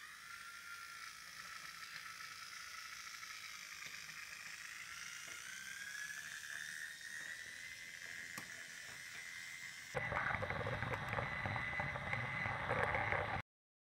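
Small electric motor of a battery-powered Brio toy train whining steadily, its pitch slowly rising. About ten seconds in the sound gets louder and rougher, then cuts off suddenly near the end.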